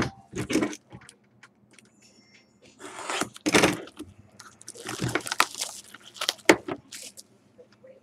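A small cardboard trading-card pack handled and opened on a tabletop: a sharp tap at the start, then several short bursts of scraping and rustling as the pack and cards are worked by hand.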